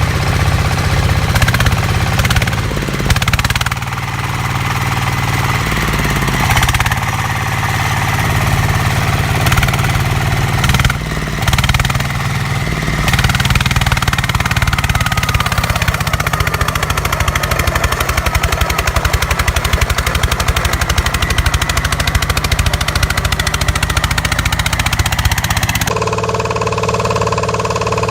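Walk-behind tractor engine running with a fast, hammering knock. Near the end the sound changes abruptly to a different, steadier engine.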